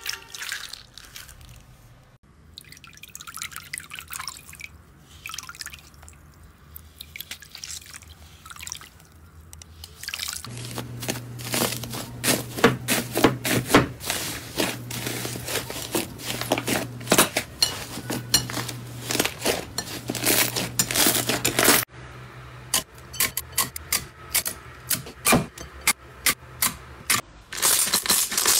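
Slime squeezed and kneaded by hand, giving wet clicking, popping and squelching sounds. The clicks are sparse and soft at first, then come dense and loud for about ten seconds while pink slime mixed with crumpled aluminium foil is kneaded, then change abruptly to a sparser clicking.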